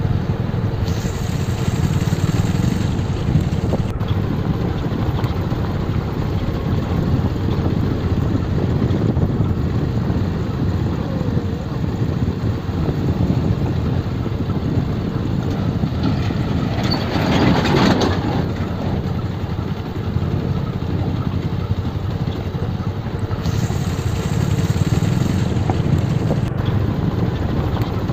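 Motorcycle running at low speed on a rough dirt road, heard from the riding bike itself: steady engine noise mixed with wind rushing over the microphone, with a louder rush of noise about two-thirds of the way through.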